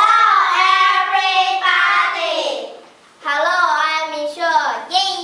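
A small group of young girls singing together. There are two long phrases with held, bending notes and a short break about three seconds in.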